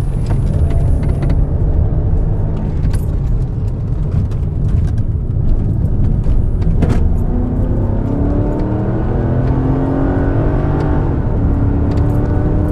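Mercedes-Benz SL500's 5.0-litre V8 running hard under acceleration, its pitch climbing steadily through the second half, with scattered sharp clicks.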